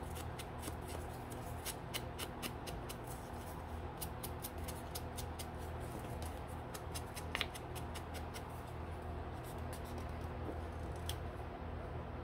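Quick, light, irregular taps and clicks from hand crafting: an ink blending tool dabbed on an ink pad and onto the edges of a paper card, over a steady low hum.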